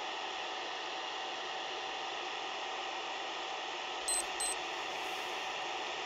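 Robot vacuum cleaner running with a steady whirring hiss, with two short electronic beeps about four seconds in.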